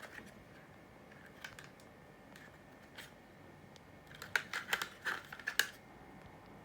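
Light clicks and scrapes of hard plastic being handled, typical of a kydex magazine pouch and its 3D-printed retention insert: a few faint ticks, then a quick run of sharper clicks about four seconds in.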